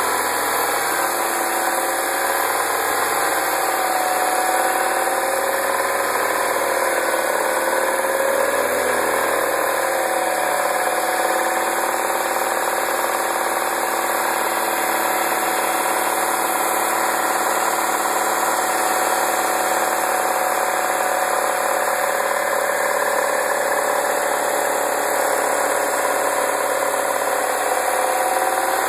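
2009 MINI Cooper (non-S) 1.6-litre four-cylinder engine idling steadily, with the rattle noise that the owner is trying to capture.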